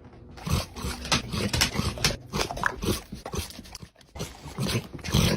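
An animal's short, irregular noises, coming in a quick, uneven run, with a brief break about four seconds in.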